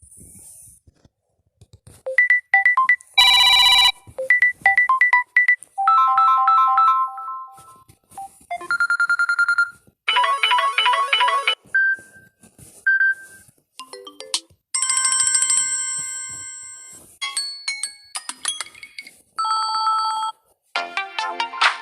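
A string of different Samsung phone ringtones previewed one after another, each a short electronic melody of a second or two that cuts off abruptly before the next one starts.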